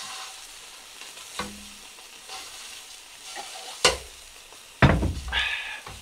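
Meat frying in a pan, with a steady sizzle. Sharp knocks come about a second and a half in, just before four seconds and just before five seconds, the last two the loudest.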